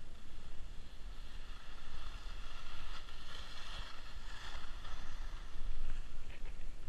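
Skis sliding and scraping over soft, choppy snow, a steady hiss that swells and fades, with wind rushing over the microphone as a low rumble.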